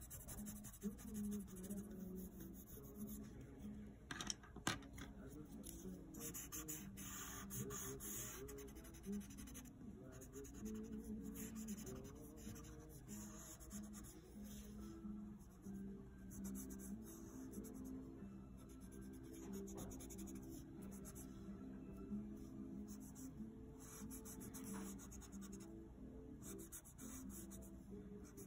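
A paper blending stump and colored pencil rubbing over drawing paper, blending and burnishing the colored-pencil layers in faint, irregular scratchy strokes.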